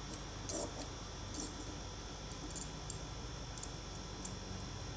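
Tailor's scissors snipping through the cotton fabric of a neck piece being trimmed: several short, faint snips and clicks at uneven intervals over a low steady hum.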